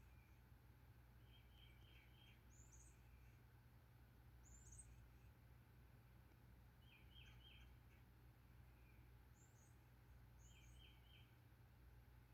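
Faint songbirds calling: a short high chirp repeated every couple of seconds, and three times a quick run of three or four clear notes, over a low steady background hum.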